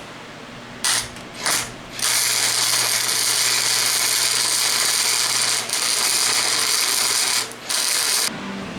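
Electric arc welding on steel: two short crackling tacks about a second in, then a continuous weld for about five and a half seconds, and one more short burst near the end, over a steady low hum.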